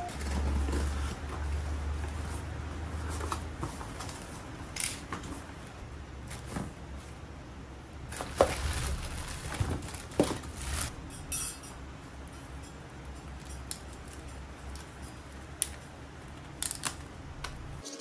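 Packages being unpacked by hand: cardboard flaps and plastic wrapping rustling as a lamp and its parts come out of the box, with scattered sharp clicks and knocks from handling, the loudest about eight and ten seconds in.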